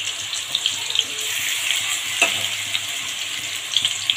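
Yogurt-marinated chicken pieces frying in hot oil in a nonstick kadhai: a steady sizzle with scattered pops and crackles, and one sharper crack about two seconds in.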